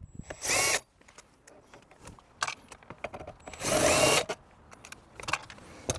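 Cordless drill with a 10 mm socket on an extension, run counterclockwise to back out dash-panel bolts. It runs in two short bursts about three seconds apart, each spinning up with a rising whine, with small clicks of handling in between.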